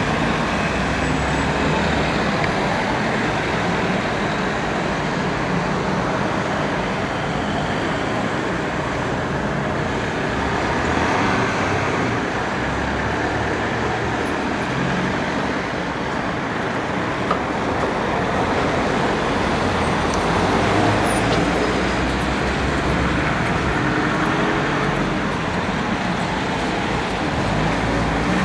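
Steady street traffic: passing cars and a van, their engines and tyres running past in a continuous rumble that swells and fades.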